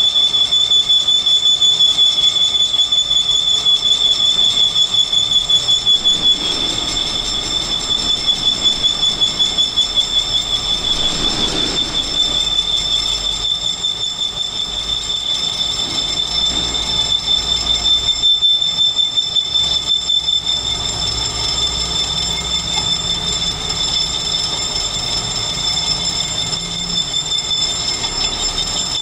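Metal lathe turning an atta chakki (flour mill) bearing cup, the cutting tool taking a continuous cut with a steady high-pitched squeal that pulses quickly in loudness over the noise of the spinning machine.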